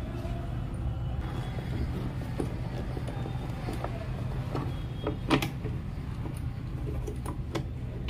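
Scattered clicks and knocks of a screwdriver and hands working the plastic casing of an induction cooktop as its base cover is screwed back on, with one louder knock about five seconds in. A steady low hum runs underneath.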